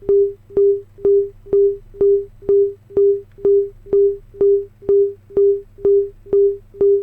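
A 400 Hz sine-wave sample played back in Native Instruments Maschine's S1200 engine mode with its low filter, repeating as short beeps about twice a second. Each beep starts with a click.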